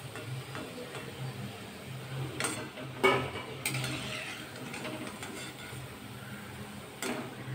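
Chickpea koftas sizzling in hot oil in a kadai while a metal slotted spatula scrapes and clinks against the pan, lifting them out, with the sharpest scrapes about two and a half to three and a half seconds in and again near the end.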